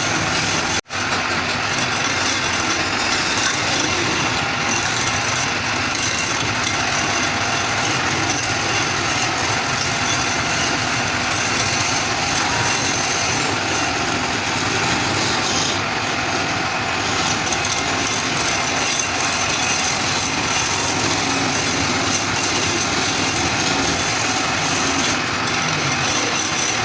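Woodturning lathe running steadily. The sound cuts out for an instant less than a second in.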